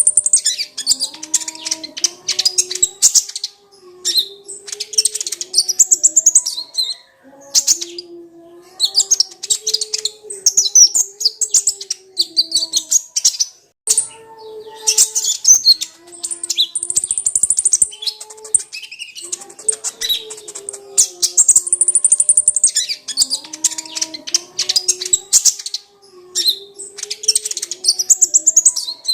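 Kolibri ninja (konin) sunbird singing a fast, high twittering song in loud phrases of a few seconds each, separated by short pauses. A lower line of stepping tones runs underneath.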